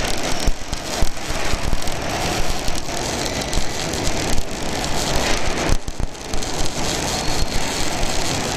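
Welding arc crackling and sizzling steadily as a welding carriage runs a bead, with a few brief dips in the crackle.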